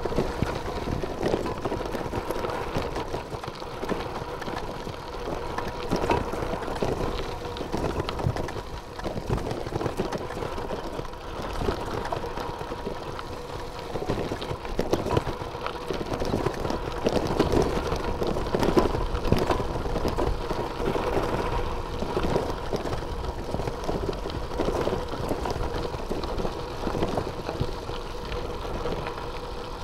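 Wind rumble and gravel road noise on a camera riding with a bicycle over a rough gravel track, with the bike rattling continuously over stones and a faint steady hum underneath.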